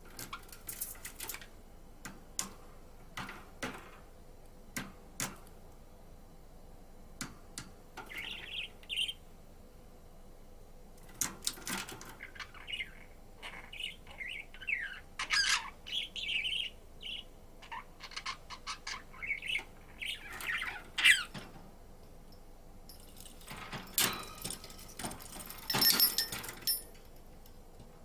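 Budgerigar chirping and warbling in short, quick phrases, with scattered sharp clicks at the start. Near the end comes a louder stretch of rustling noise.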